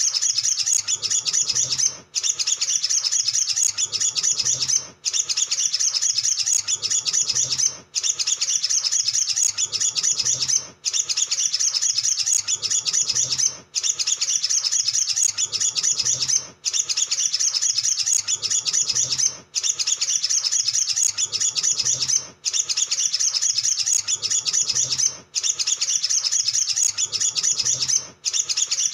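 Olive-backed sunbird song: a rapid, high, chattering twitter in runs of about three seconds, each broken by a brief gap and repeating at even spacing. It is the full, busy 'gacor' song used as a lure to prompt other sunbirds to sing.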